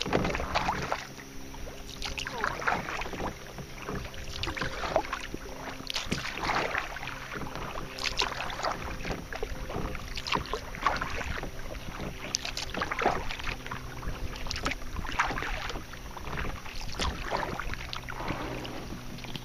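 Kayak paddle strokes through calm river water: the blades dip and pull in a steady rhythm, splashing and dripping every second or two, over a faint steady low hum.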